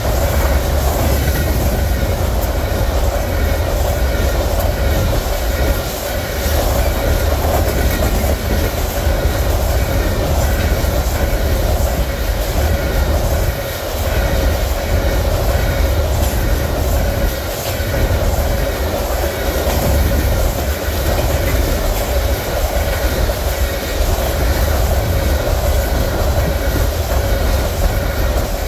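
A long train of empty steel covered grain hopper cars passing at speed: a loud, continuous rumble and rattle of steel wheels on the rails, with a steady tone running through it.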